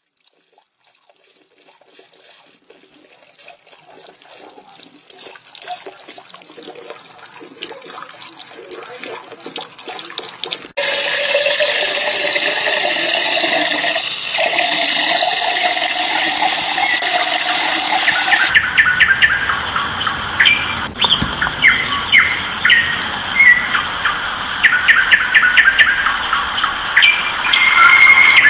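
Water running in a glass-cylinder vortex fountain, growing louder as the cylinder fills, then jumping to a steady loud level about eleven seconds in. About eighteen seconds in it cuts to birds chirping.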